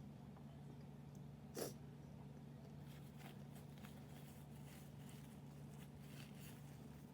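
Quiet room with a steady low hum; about one and a half seconds in, a short nasal sniff, then faint scattered mouth clicks from eating.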